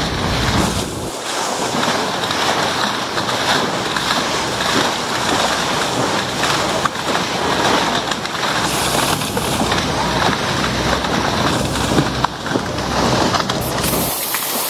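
Rushing, splashing water of a dive boat's bow wave as the hull cuts through the sea at speed, with wind buffeting the microphone.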